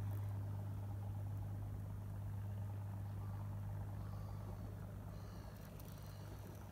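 A steady low mechanical hum, engine-like, holding one unchanging pitch.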